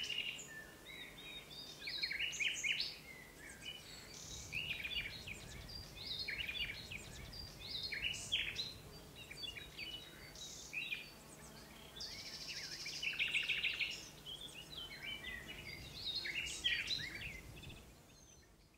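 Woodland birdsong: a chorus of small songbirds giving many short, high chirps and trills, fading out at the end.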